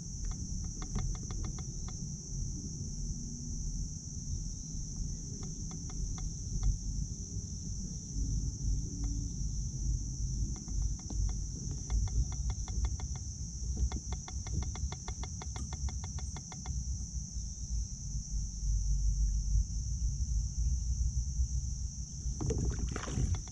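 Steady, high-pitched chorus of insects, crickets or katydids, over a low rumble of wind and water on the microphone, with several short runs of rapid ticking.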